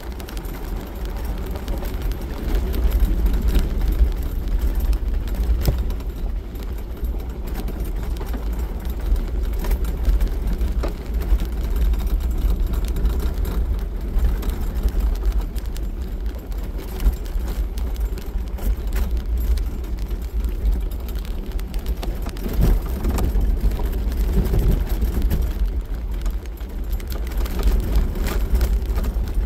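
Jeep Wrangler driving on a gravel road, heard from inside the cab: a steady low engine and drivetrain rumble with tyre noise from the gravel that swells and eases, and scattered small knocks and rattles.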